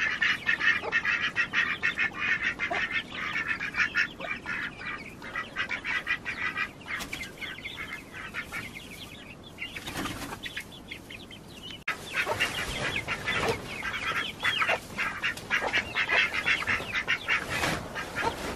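A flock of backyard chickens and ducks calling together, a busy stream of rapid chattering calls and quacks. The calling thins out about halfway through and picks up again strongly a couple of seconds later.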